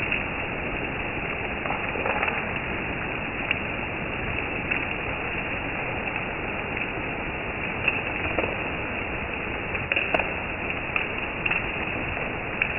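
Heavy rain pouring down on trees and grass, a steady hiss with scattered sharper taps of single drops.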